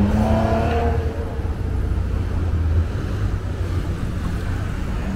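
City street traffic, with a car passing close by in the first second or so, its engine humming, and low wind rumble on the microphone that eases after about three seconds.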